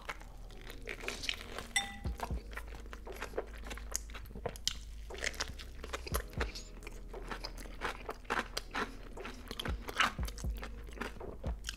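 Close-up crunching and chewing of a fried chicken sandwich coated in a Hot Cheetos breading and dipped in cheese sauce. The crunchy Cheeto crust crackles in many sharp, irregular bites and chews.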